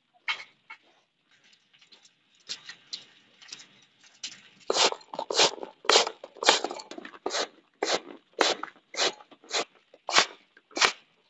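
Rice grain swishing and rattling on a woven bamboo winnowing basket as it is tossed and shaken, in short strokes: a few scattered ones at first, then a steady rhythm of about two a second from about five seconds in.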